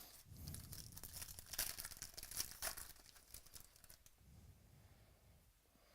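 Rustling and scraping as trading cards are handled, with paper or plastic crinkling and small clicks, busiest over the first three seconds and then fading.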